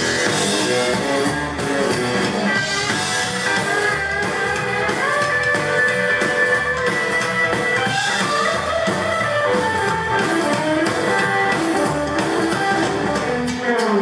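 Live rockabilly band playing an instrumental passage with no singing: electric guitar to the fore over upright double bass and drum kit.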